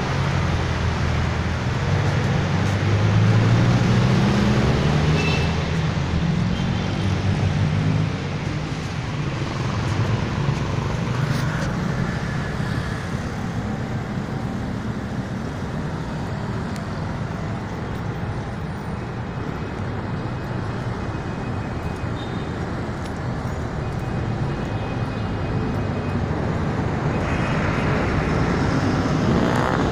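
Street traffic. A nearby vehicle engine hums low for the first several seconds, then gives way to a steady wash of road noise, which swells again near the end.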